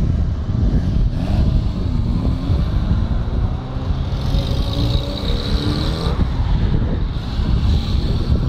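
Fiat X1/9 sports cars driving slowly past one after another, their four-cylinder engines running with a pitch that rises and falls as each car pulls through.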